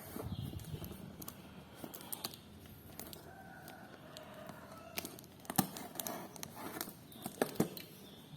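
A parcel's packaging being torn open and crinkled by hand: irregular rips, rustles and sharp crackles.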